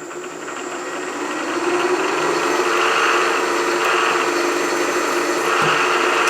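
Milling machine spindle motor starting and coming up to speed over the first couple of seconds, then running with a steady hum.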